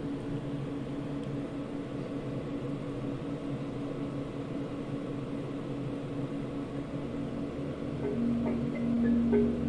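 A power amplifier's cooling fan running with a steady low hum. About eight seconds in, music from an MP3 player starts faintly through the amplifier.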